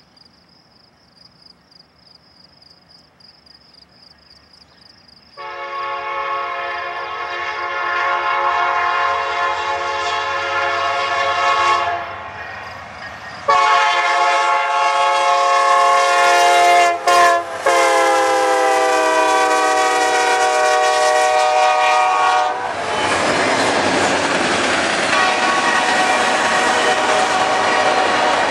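Faint insects chirring, then a freight locomotive's air horn sounds two long blasts, the second dropping in pitch as the fast-moving lead SD70M passes. After the horn stops, the loud, steady noise of the trailing locomotives and double-stack intermodal cars rolling by at speed.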